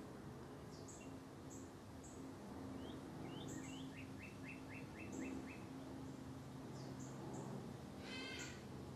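Small wild birds calling: short high chirps every second or so, a quick run of about seven notes a little past the middle, and a brief buzzy chattering call near the end, over a low steady hum.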